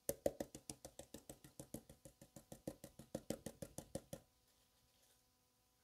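Green plastic gold pan full of wet paydirt being shaken rapidly side to side in a tub of water, making a quick, even run of knocks about eight a second that stops about four seconds in. This shaking settles the heavy gold to the bottom of the pan.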